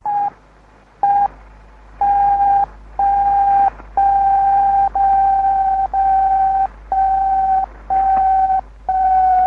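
A single steady beep tone keyed on and off about once a second over radio hiss: two short beeps, then a run of longer tones that fill most of each second. The pitch sags slightly towards the end.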